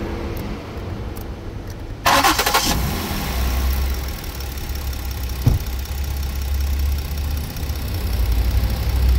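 Car engine idling with the electric radiator cooling fans running. About two seconds in, a sudden loud rush of air sets in and carries on as the fans are driven to a higher speed, and there is a single click near the middle. The fans keep running after the air conditioning is switched off, which the owner puts down to low coolant letting the engine run a little hot.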